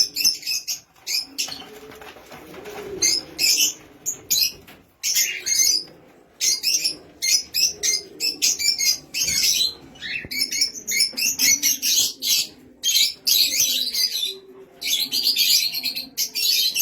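Small parrots, budgerigars and cockatiels, chirping and chattering together in rapid, high-pitched bursts that overlap almost without pause.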